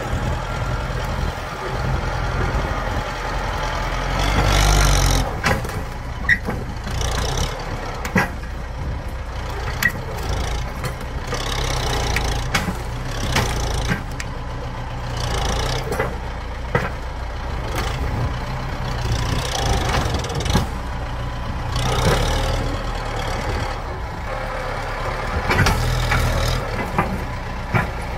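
Tractor engine running steadily under load as its front dozer blade pushes through soil and tree roots, the engine note swelling several times as the blade bites. Scraping and cracking of soil and roots, with a few sharp knocks.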